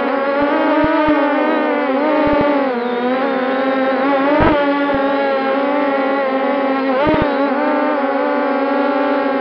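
MJX Bugs 6 brushless racing quadcopter's motors and propellers humming steadily, heard from a camera mounted on the drone's own frame. The pitch wavers as the throttle changes, with a few brief low thumps, most clearly about halfway through and again near the end.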